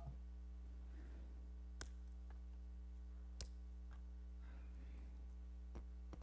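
Quiet room tone over a steady low electrical hum, with a few faint sharp clicks, the loudest about three and a half seconds in.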